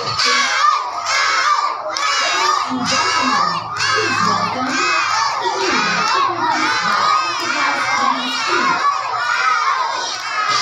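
A crowd of young children shouting and cheering together, many high voices at once without a break.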